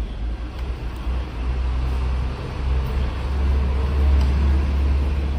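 A steady low rumble, like a running engine or motor, under a faint wash of background noise.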